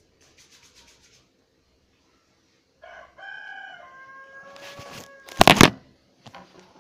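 A rooster crowing once, a call of about two and a half seconds ending in a long held note. Right after it comes a loud, short burst of noise.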